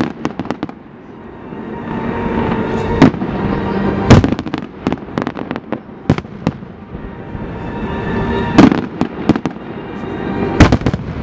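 New Year fireworks and firecrackers going off: a dense run of sharp bangs over a continuous crackle. The loudest bangs come about three, four, eight and a half and ten and a half seconds in.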